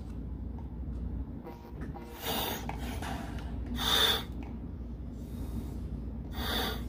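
Test breaths drawn through a Sherwood Maximus scuba regulator second stage: three hissing rushes of air a couple of seconds apart, the middle one the loudest. The freshly serviced regulator is breathing normally.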